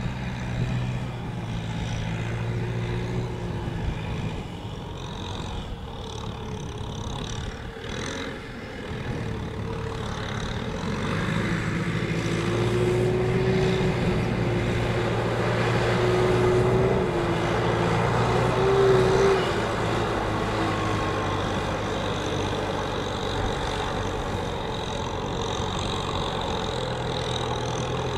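Kubota M6040SU tractor's diesel engine running steadily under load while pulling a trailer loaded with rice sacks. The engine note gets louder and a little higher from about twelve seconds in to about nineteen seconds, then settles back.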